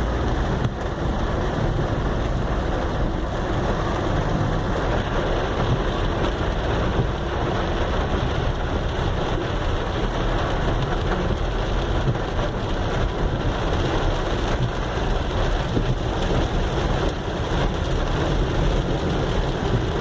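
Steady noise of heavy rain on a car, with the car running slowly through the flooded street.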